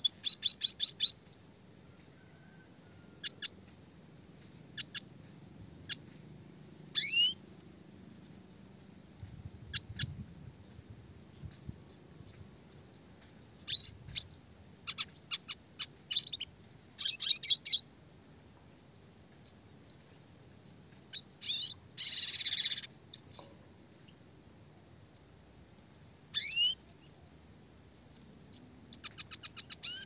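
Red siskin (Spinus cucullatus) singing. Fast chirping trills open and close the passage, with scattered sharp chirps and a few short upward-sliding whistles between them, and a harsh buzzy note a little past the middle.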